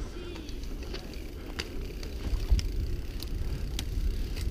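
Mountain bike descending a dirt trail at speed: a steady rumble of wind on the helmet camera's microphone and tyres on the ground, with a few sharp clicks and knocks of the bike rattling over bumps, the loudest about halfway through.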